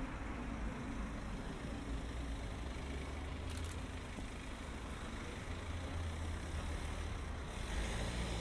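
Steady city road traffic: passing cars and heavier vehicles with a low rumble.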